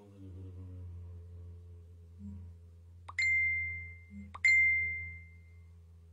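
A small Tibetan ritual metal chime is struck twice, about a second and a half apart. Each strike rings a clear, high, bell-like tone that slowly fades, the second ringing longer. A low hummed tone dies away at the start.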